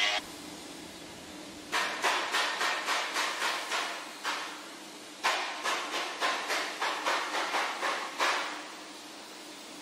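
Two runs of rapid hammer blows, about three to four strikes a second, each run lasting a few seconds, over a steady hiss of workshop noise.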